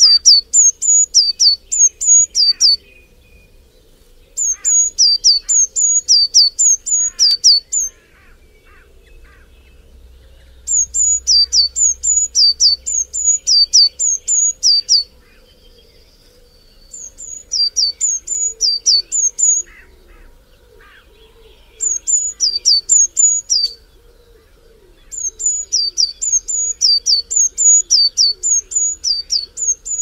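A small songbird singing a high, quick repeated two-part note, each note dropping in pitch, in six bursts of about two to four seconds with short pauses between.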